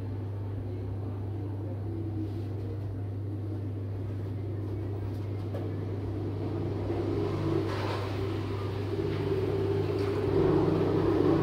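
Commercial espresso machine running with a steady low hum, growing louder and rougher over the last few seconds.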